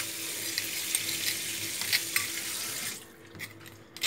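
Kitchen tap running steadily into the sink for about three seconds, then shut off, with a few faint clinks.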